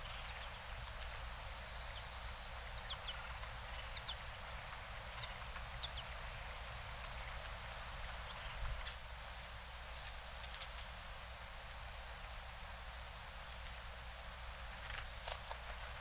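Northern cardinals giving short, sharp, high chip calls, with faint scattered notes at first and louder, clearer chips in the second half, over a steady outdoor hiss.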